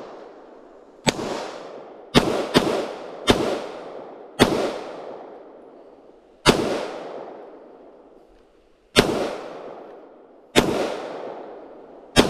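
Ruger Security-9 9mm pistol firing nine shots at an uneven pace, three of them in quick succession about two seconds in. Each shot is followed by a long echo that dies away.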